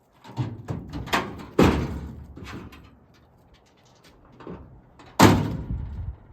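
Doors slamming on a squarebody Chevrolet pickup: a run of knocks and clunks, with two loud slams about one and a half seconds in and again near the end.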